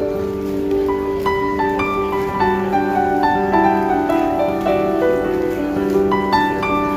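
Instrumental background music: a piano melody of single struck notes over held low chords.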